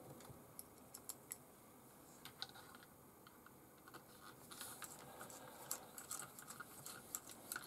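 Faint, scattered clicks of a small screw and washer being handled and driven with a screwdriver into the plastic chassis of a Tamiya TL01B buggy. The clicks come more often from about halfway through.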